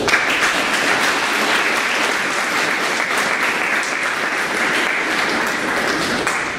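Audience applauding: a dense round of clapping that starts suddenly and dies away near the end.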